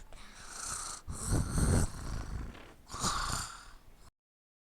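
Snoring: three drawn-in snores, the second and third with a high whistling hiss, and the sound cuts off suddenly near the end.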